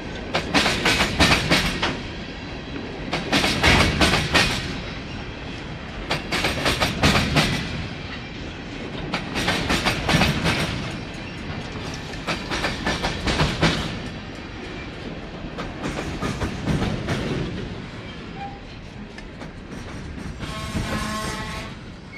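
Empty coal train cars rolling slowly past, their wheels clicking over the rail joints in a loud cluster about every three seconds as each pair of car ends goes by. A short high squeal of steel near the end.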